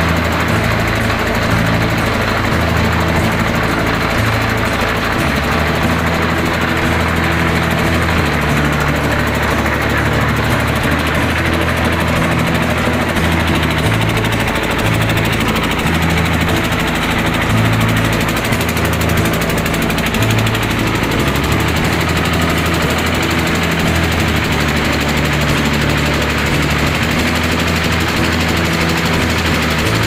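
A concrete mixer's 10 HP engine running steadily under load.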